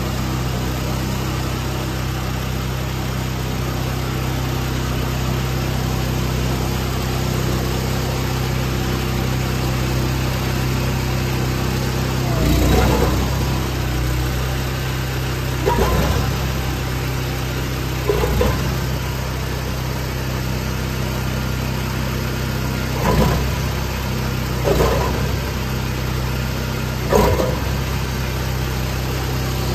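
Honda gas engine running steadily at idle, with about six brief louder surges in the second half.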